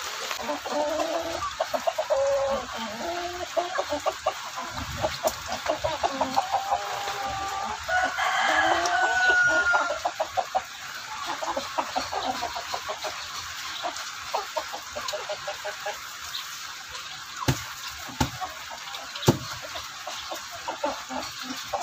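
A flock of brown backyard chickens clucking and calling, with a rooster crowing in the middle. The calling grows thinner later, broken by a couple of sharp knocks.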